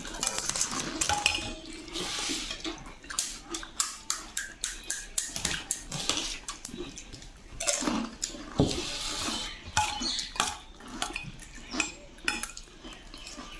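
Steel spoons clinking and scraping against steel plates and a steel bowl in many quick, irregular clicks as pani puri shells are filled with spiced water and eaten.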